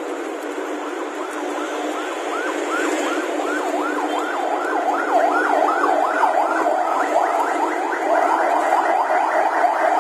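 A vehicle siren in a fast up-and-down yelp, about three sweeps a second, growing louder about halfway through and cutting out near the end, over steady road traffic.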